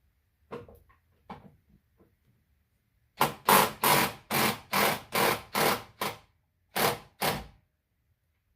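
Socket ratchet wrench worked back and forth on a bolt: a few light clicks, then about ten quick, loud ratcheting strokes over some four seconds.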